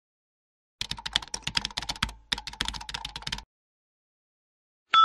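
Computer keyboard typing: two quick runs of rapid key clicks, one about a second and a half long and one about a second long, with a short gap between. Just before the end a bright bell-like ding begins.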